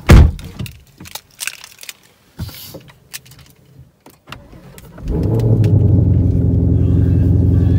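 A loud thump just as it begins, then small clicks and knocks. About five seconds in, the 2020 Shelby GT500's supercharged 5.2-litre V8 is started with the push-button start and settles into a loud, steady idle.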